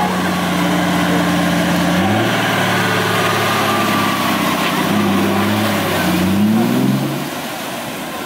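An off-road 4x4's engine running steadily, then revving up about two seconds in and again near six seconds, before dropping away about seven seconds in.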